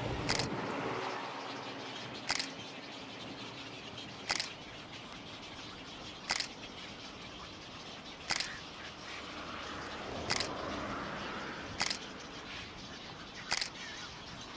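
Single camera shutter clicks about every two seconds, eight in all, over a steady outdoor background hiss.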